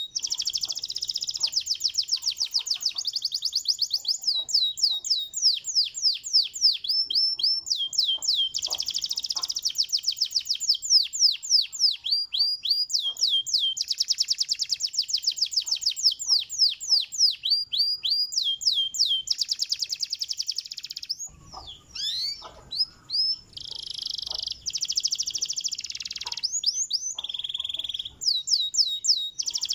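Domestic canary singing a long, fast song of rolling trills, each a run of quick downward-sweeping high notes repeated many times a second, switching from one trill to another every second or two, with a short break about 21 seconds in.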